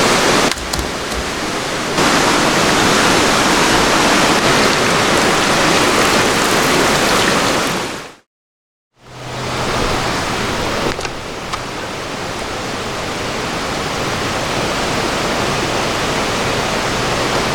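Rushing river water, a steady, even noise. It fades out to silence about eight seconds in and comes back a little quieter, with a faint low hum under it.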